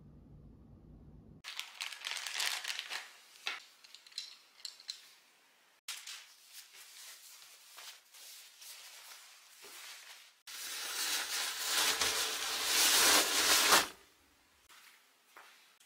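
A crinkly waterproof mattress-topper sleeve and its packaging being handled, with on-and-off rustling, crinkling and small clicks. Near the end comes a louder, dense rustling stretch of about three seconds that stops suddenly.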